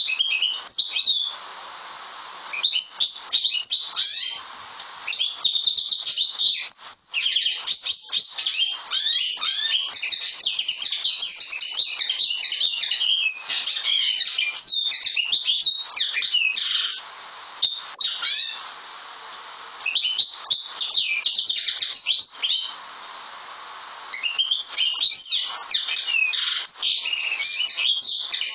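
Common linnet singing: long runs of fast, varied twittering song, phrase after phrase with short pauses between.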